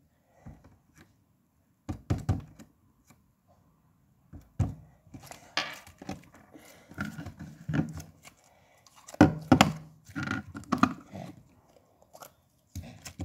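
Hands handling a jar of white slime: irregular knocks, taps and wet squishing clicks, coming in bunches and busiest in the second half.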